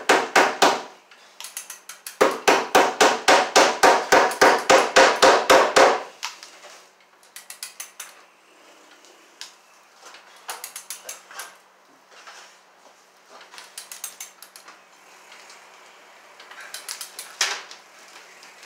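Hammer striking a wooden ceiling joist overhead, a few blows and then a fast steady run of about five blows a second for some four seconds, fastening electrical cable to the wood. After that, only light scattered clicks and taps.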